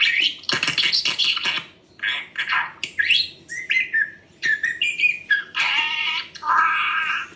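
Pet budgerigar chattering: a fast, continuous run of chirps, squawky notes and short warbles, with a couple of longer buzzy notes near the end.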